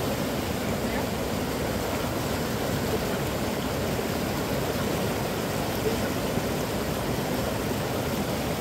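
Steady rushing of a shallow, fast-flowing stream: an even wash of water noise with no break.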